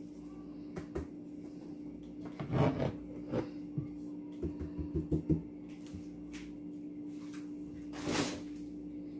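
Cardboard box of dry pancake mix being tipped and shaken out into a ceramic mixing bowl. There is a burst of rustling between two and three seconds in, a quick run of five or six light taps around five seconds, and another rustle near the end, over a steady low hum.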